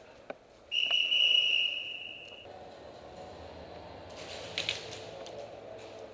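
One long, steady, high-pitched whistle blast about a second in, lasting nearly two seconds.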